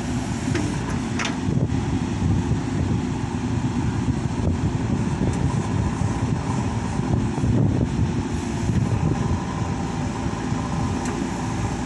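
JCB backhoe loader's diesel engine running steadily under work, with a few faint knocks.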